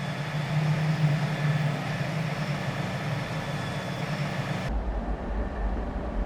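Steady engine-like roar with a low hum, which switches abruptly about three quarters of the way through to a deeper, duller rumble, as if one recording were cut to another.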